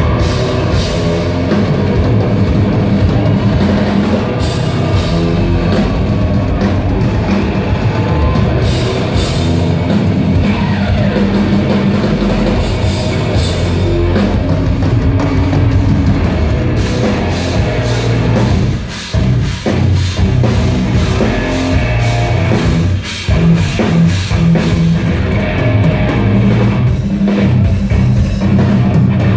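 Live symphonic metal band playing loudly, with electric guitars, keyboards and a driving drum kit. The full band stops briefly twice, about two-thirds of the way through, before crashing back in.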